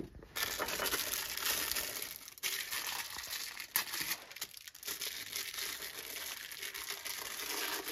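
Close rustling and crinkling handling noise with scattered light clicks, as a piston ring is picked up and handled.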